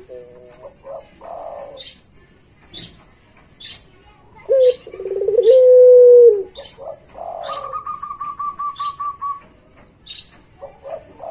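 A puter pelung, a domestic collared dove, gives one long, loud coo about four seconds in: a short rising note runs into a held note that drops at its end. Higher short chirps from another bird repeat throughout, with a quick pulsing trill after the coo.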